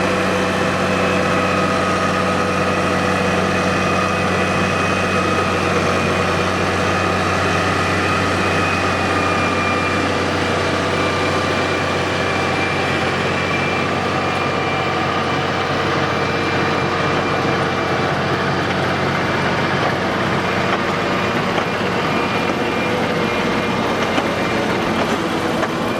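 Case IH Puma CVX tractor's diesel engine running steadily at constant speed, a low even engine note with a faint higher whine over it.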